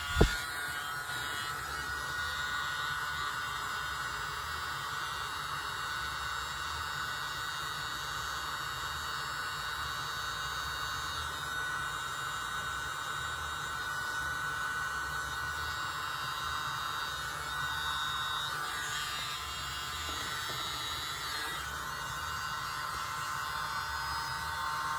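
Tiny handheld mini leaf blower running steadily with a thin, even motor whine, its airflow held over the wet paint. A single sharp knock sounds just after the start.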